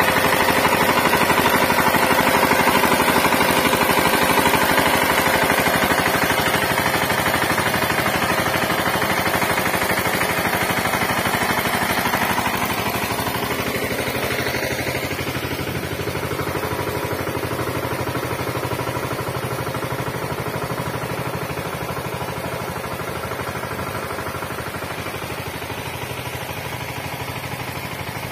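VST Shakti 130 DI power tiller's single-cylinder diesel engine running under load while its rotary tines churn soil, a rapid, steady knocking drone. It grows gradually fainter through the second half.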